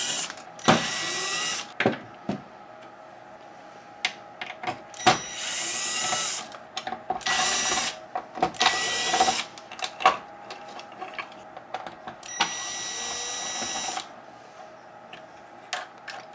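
Cordless drill/driver running in about six short bursts, backing screws out of a VCR tape mechanism. Each burst whines up to speed and holds a steady pitch. Sharp clicks and rattles come between the bursts.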